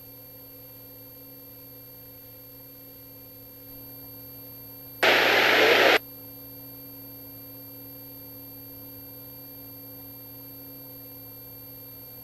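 Radio receiver hissing with a faint steady hum, broken about five seconds in by a loud burst of static that lasts about a second and cuts off sharply: a transmission keyed without speech.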